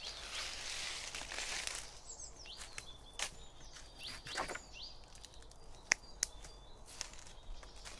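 Leaves and sticks rustling as wood is handled up in a tree branch, then a few sharp wooden knocks, the loudest pair close together about six seconds in. Small birds chirp briefly now and then.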